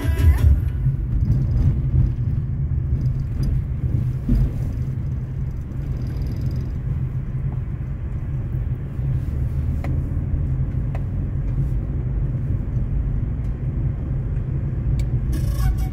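Steady low rumble of a car's engine and tyres on an uneven road, heard inside the moving car's cabin.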